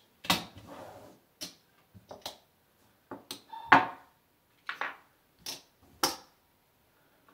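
Casino chips clicking as they are taken from a stack and set down one by one on a craps table layout: about a dozen separate sharp clicks, the loudest about halfway through.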